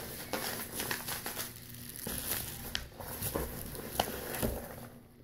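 Packing material crinkling and rustling in a box as hands dig through it, with scattered small clicks and taps.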